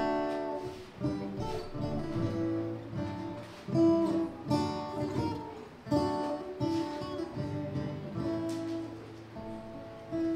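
Solo steel-string acoustic guitar playing an instrumental passage: strummed chords with picked notes between them, each left to ring out.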